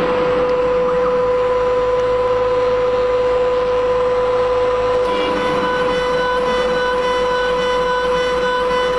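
Mini CNC router's spindle whining at a steady pitch as its cutter engraves a metal plate, over a hiss of cutting. About five seconds in, the whine turns brighter as more high overtones join it.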